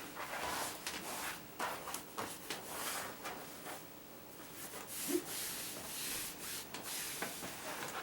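Hands rubbing and sliding over the patient's clothing during chiropractic work, a series of irregular swishing strokes.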